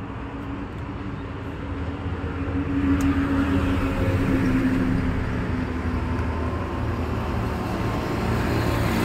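Road traffic: a motor vehicle's engine runs steadily and grows louder about two and a half seconds in as it comes closer.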